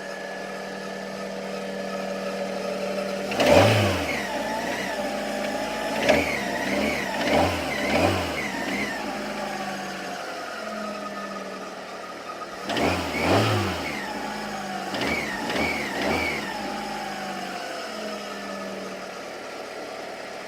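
Fiat Albea engine idling, then revved in two series of quick blips, with a high thin whistle over it. The whistle is from the clutch release (throw-out) bearing.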